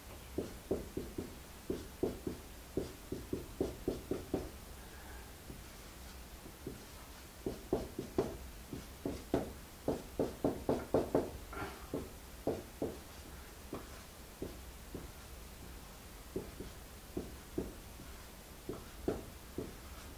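Dry-erase marker writing on a whiteboard: a string of short, irregular strokes and taps, busiest in the middle.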